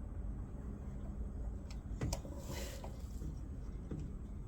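Quiet handling sounds of small carburetor parts being fitted by hand: a single sharp click about two seconds in and a brief rustle just after, over a low steady background hum.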